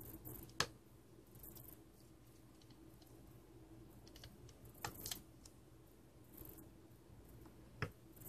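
Plastic pry tool working into the seam of a power bank's casing: faint scraping with about four sharp clicks, the loudest about half a second in, two close together around five seconds and one near the end.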